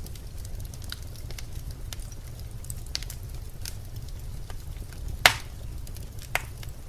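Birch logs burning in a fireplace, crackling with scattered small pops over a low steady rumble of the flames, and one loud sharp pop a little after five seconds in, followed by a smaller one about a second later.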